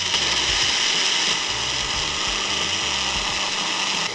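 Magic Bullet blender motor running at full speed, its blades chopping a smoothie of fruit, kale and liquid into a steady loud whir.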